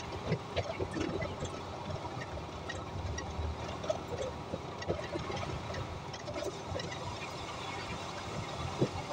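Cabin noise of a Volvo hybrid city bus on the move: a steady low rumble of road and drivetrain noise with frequent small rattles and clicks from the interior fittings.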